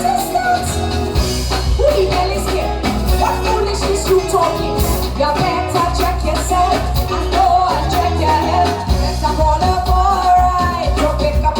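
Loud live soca music over a sound system: heavy steady bass and a driving drum beat under a melody.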